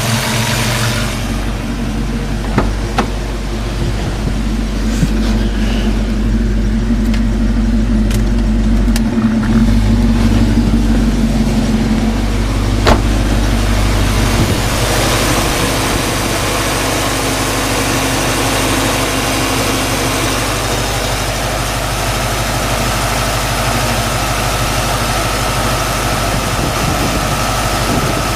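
1995 Ford Mustang Cobra V8 idling, heard close up at the A/C compressor. A few seconds in the A/C is switched on and the compressor clutch engages; the knocking noise, which the owner puts down to the A/C compressor with its clutch disengaged rather than an engine bearing, seems to go away.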